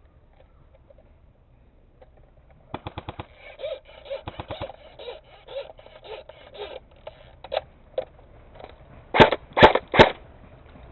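Airsoft guns firing: a quick burst of rapid shots about three seconds in, followed by scattered shots, then three loud, close single shots near the end.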